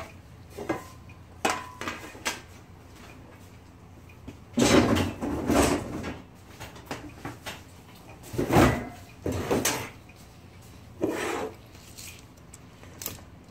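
Clicks and bursts of metal-and-wood clatter as an old Olivetti typewriter is handled and shifted about: a few sharp clicks, then three heavier rattling bursts.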